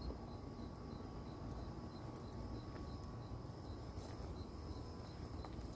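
A cricket chirping in a steady rhythm, a high chirp about three times a second, over faint low background noise.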